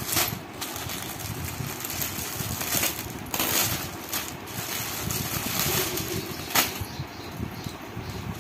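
Plastic packaging rustling and crinkling as it is handled and opened, with a few sharper crackles.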